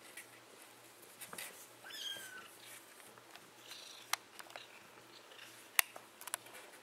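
A nearly four-week-old kitten gives one brief, high mew about two seconds in. A few sharp clicks sound later, the loudest near the end.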